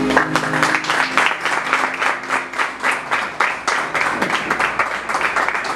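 Applause from a small audience, many hands clapping densely and continuously, with background music fading out at the start.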